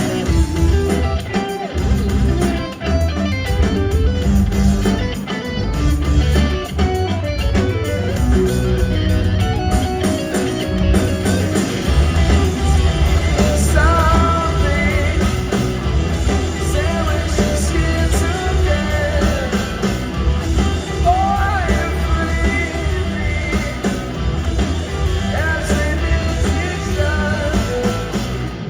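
Live rock band playing full-on: electric guitars, bass and drums with a heavy low end. A singing voice comes in about halfway through.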